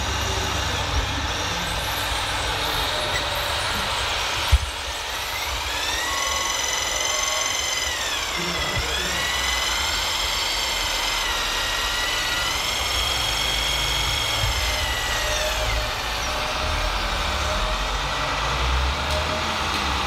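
Hydraulic pump of a radio-controlled Komatsu PC490 LC excavator model whining under load as the arm and bucket dig. Its pitch rises about five seconds in, dips briefly, holds, then falls away a few seconds before the end. A steady low rumble lies underneath, and there is a single sharp knock just before the whine starts.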